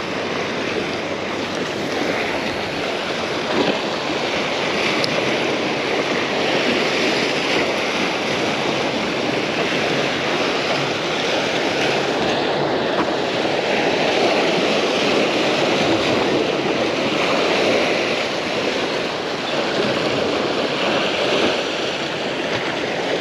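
Waves breaking and washing against the stone blocks of a rock jetty: a steady surf wash with no let-up.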